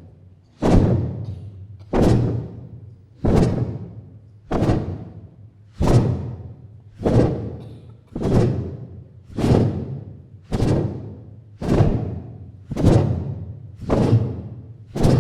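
Performance music made of a low drum beat repeating steadily, about thirteen hits a little over a second apart, each hit ringing out and fading before the next.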